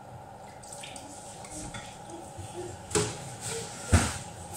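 Dishes and pots being handled at a kitchen sink: a faint clatter with two sharper knocks, about three and four seconds in.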